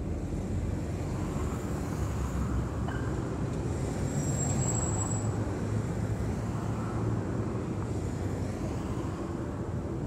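Steady low rumble of road traffic, swelling gently around the middle as a vehicle passes and easing off again.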